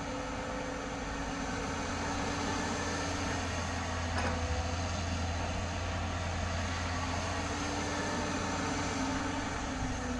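JCB crawler excavator's diesel engine running steadily under load as the machine digs and swings, a constant low hum with its hydraulics, and one faint knock about four seconds in.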